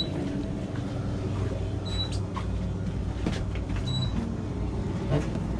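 Steady low hum of shop refrigeration, with a short high beep repeating about every two seconds and a few light handling clicks as a freezer door is opened.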